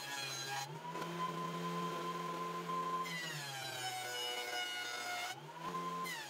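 Benchtop jointer running, its motor whine dropping in pitch as a hardwood board is fed across the cutter head and rising back between passes, with the hiss of the knives cutting during each pass.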